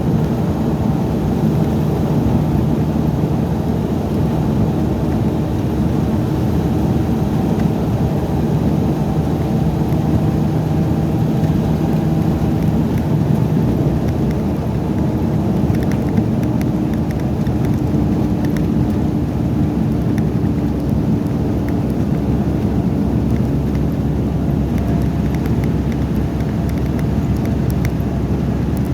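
Steady low rumble of engines running, with faint hum tones that hold for several seconds at a time and a few light clicks in the second half.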